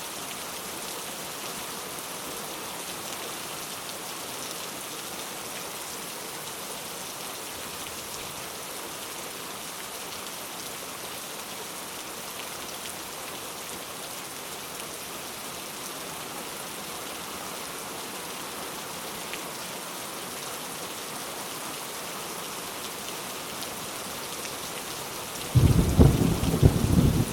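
Steady rain falling. Near the end a loud clap of thunder breaks in suddenly and rumbles low.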